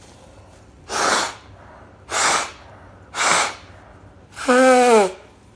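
A person with a cold makes three short, noisy blasts of breath about a second apart, then a voiced groan that falls in pitch at the end.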